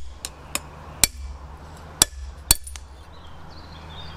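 About five sharp metallic hammer blows on a hardened, untempered steel blade held over an anvil, the last ones in quick succession as the blade snaps into pieces. The steel is very brittle because it has been hardened but not tempered.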